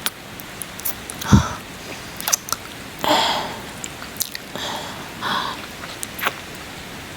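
Close-up ASMR kissing: wet lip smacks and mouth clicks right at the microphone, with a few soft breaths in between, over a faint steady rain track.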